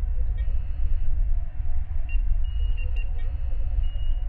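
Science-fiction starship bridge ambience: a steady deep engine rumble with soft, short electronic computer beeps and chirps coming and going over it.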